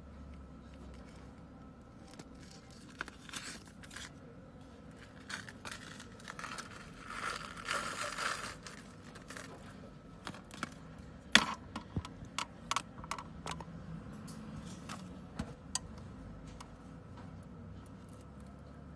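Clear plastic zip-lock bag crinkling and rustling as it is handled and opened, loudest a little past the middle of its run. Then a run of sharp clicks as the small hard conch pearls are handled, the loudest one single and sudden.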